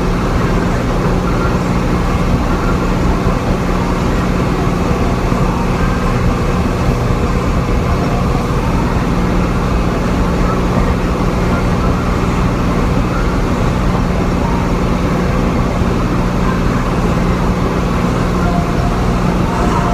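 Tractor engine running steadily, heard from inside the cab as an even, constant drone.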